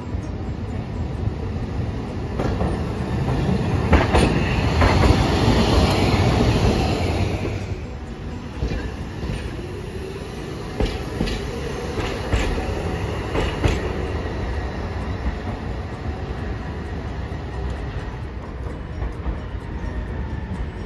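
Hiroshima Electric Railway streetcar passing on street track, rising to its loudest in the first half, its wheels clacking sharply over the rail joints. After that comes a steady street rumble with a few more sharp wheel clacks.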